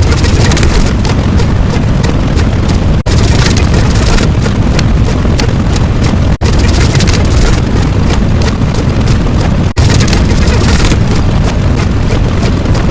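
A loud sound effect of dense rumbling, crackling noise, heaviest in the low end, repeated in stretches of about three and a third seconds, each ended by a split-second break.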